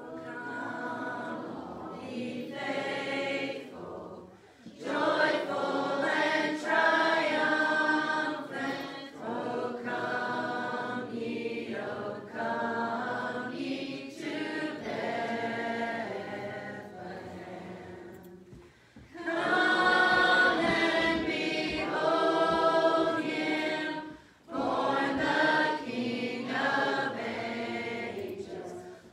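Church congregation singing a Christmas hymn unaccompanied, with no piano or other instruments, in lines broken by short breaths.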